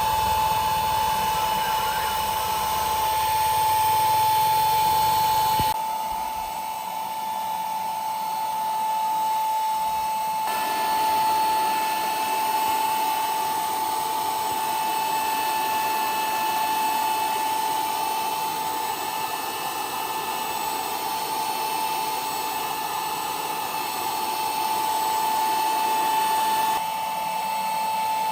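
An electric power tool running steadily with a high, even whine. The surrounding noise changes abruptly a few times while the whine holds.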